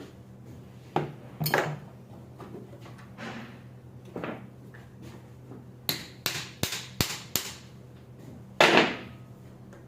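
Metal tools and parts clinking and clanking as they are handled during starter removal: scattered knocks, a quick run of about five sharp clicks, and the loudest clank near the end, over a faint steady low hum.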